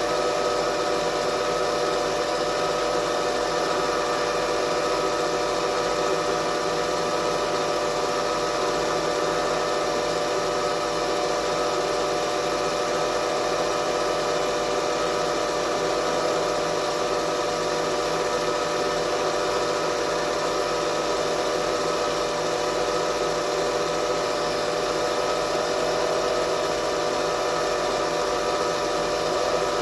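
Knee-type milling machine running with its spindle turning, a steady machine hum with a fixed whine and no change in speed.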